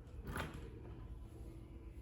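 A single short metallic scrape or knock about half a second in, as the wheelchair's rear wheel and axle are pushed back into the frame. Faint background noise follows.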